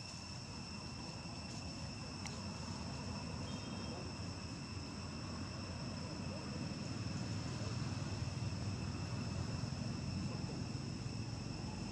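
Steady, unbroken insect drone of high thin tones, over a low rumble that grows a little louder toward the end, with a single sharp click about two seconds in.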